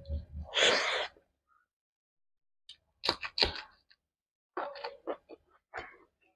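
Close-miked eating sounds: a mouthful of rice and fried egg taken by hand, with a short breathy rush about half a second in, then chewing heard as clusters of wet mouth clicks and lip smacks around the middle and later.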